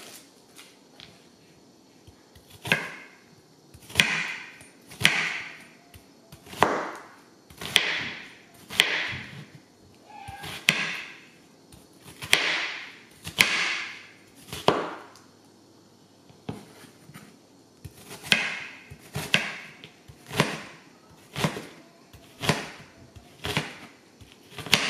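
Chef's knife chopping onion on a wooden cutting board: each stroke is a crunch through the onion ending in a knock of the blade on the board, about one a second. The chopping starts about two seconds in, with a brief pause a little past the middle.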